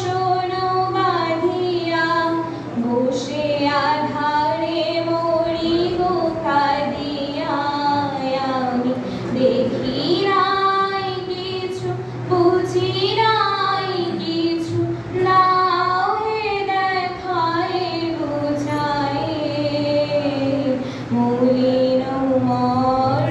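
A solo female voice singing a slow melody into a microphone, with long held notes that glide between pitches.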